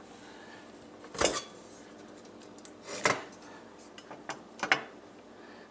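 Small metal car parts being handled, clinking and knocking against each other: four sharp knocks, the loudest about a second in, with lighter ticks between.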